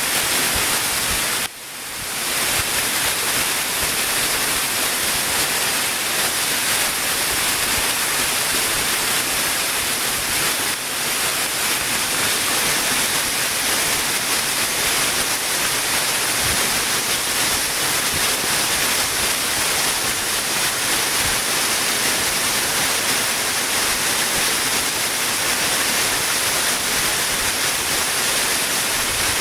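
Waterfall rushing with a steady, loud roar of falling water. The level drops sharply about a second and a half in and recovers within a second.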